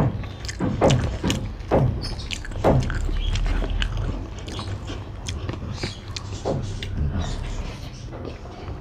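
Close-miked eating sounds: a person chewing a mouthful of rice and chicken curry, with repeated wet mouth clicks and smacks about once or twice a second, over a low steady hum.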